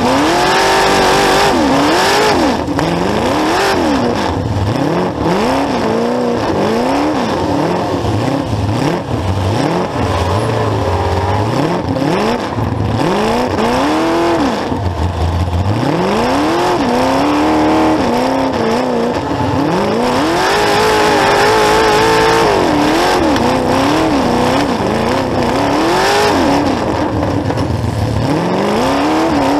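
Demolition-derby truck's V8-style engine heard through short open vertical exhaust stacks right beside the microphone. It is loud and revs up and down over and over as the truck accelerates, backs up and turns.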